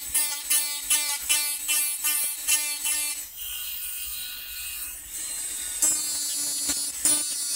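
Small electric rotary tool with a burr grinding a titanium knife pocket clip in short repeated touches, about three a second, pitting the surface into a rough stone-like texture. A little past the middle the burr comes off the metal and the tool runs on its own for about two seconds, then goes back to touching the clip.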